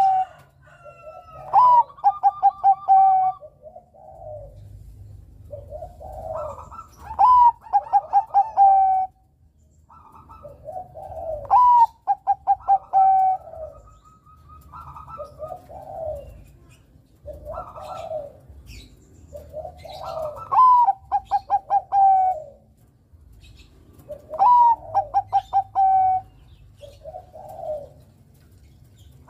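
Zebra dove (perkutut, Bangkok type) singing its cooing song: phrase after phrase, about every four to five seconds, each a short rising note followed by a quick run of clipped, rolling coos.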